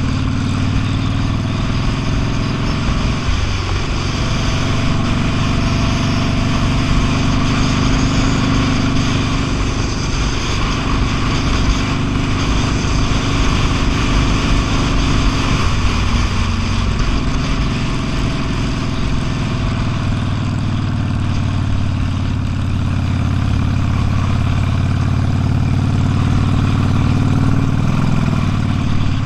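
V-twin cruiser motorcycle engine running steadily on the road, with a constant hiss over it. The pitch dips briefly a few seconds in and again about halfway through.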